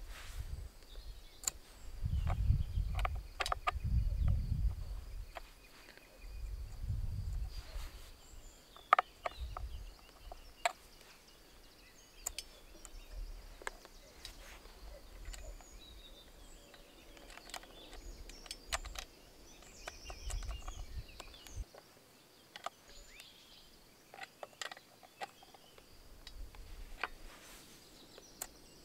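Outdoor ambience: low rumbling gusts, most likely wind on the microphone, come and go several times. Scattered sharp clicks and knocks sound over a faint steady high tone.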